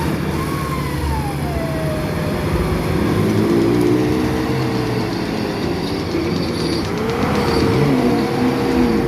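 Off-road 4x4 vehicle's engine revving in surges, its pitch rising and falling, pushing hardest about three seconds in and again near the end.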